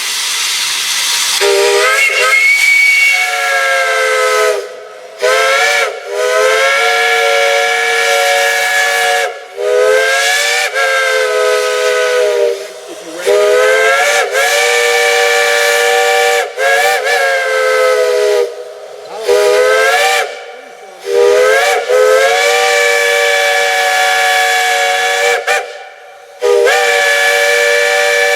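A multi-chime steam whistle sounding a chord in about ten blasts of varying length, some short and some held several seconds. Each blast slides up in pitch as the whistle opens. Steam hisses just before the first blast.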